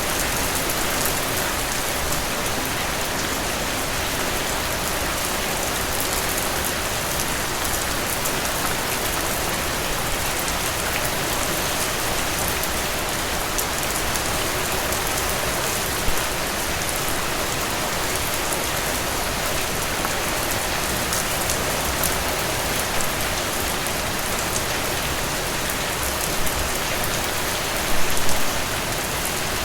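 Steady rain falling and pattering on surfaces, a constant even hiss with individual drops ticking through it. A few louder drops or splashes stand out briefly, most clearly near the end.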